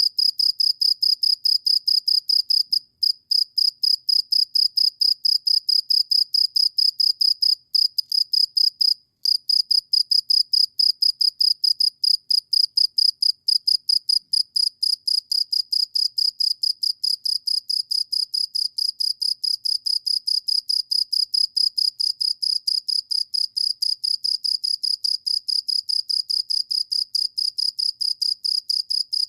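An insect (tiddian) chirping in a fast, even pulse train, about five high-pitched chirps a second, with a few brief pauses about 3, 8 and 9 seconds in.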